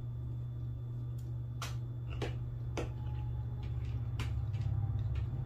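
Metal fork clicking against a plate as a pancake stack is cut and eaten, four sharp clicks from about one and a half seconds in, over a steady low hum.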